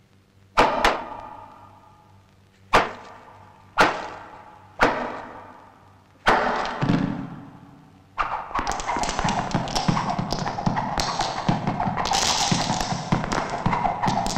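Cartoon percussion sound effects for a tiger's tail whacking a tree trunk: five sharp knocks, each ringing away, a second or two apart. About eight seconds in, they give way to a rapid, continuous rattling clatter.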